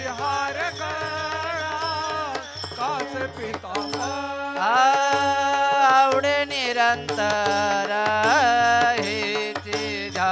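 Marathi Warkari devotional singing: men's voices drawing out long, wavering melismatic notes, accompanied by small brass hand cymbals (taal) being struck.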